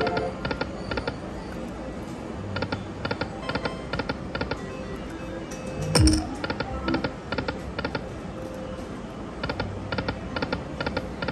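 Aristocrat Lightning Cash High Stakes video slot machine spinning: a short electronic spin sound about six seconds in, and quick runs of clicking ticks as the reels stop one after another, over the machine's music.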